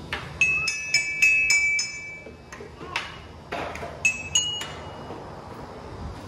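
Sharp clinks of hard objects striking each other, each with a short bright ring: a quick run of five or six taps in the first two seconds, a few duller knocks, then three more ringing taps about four seconds in.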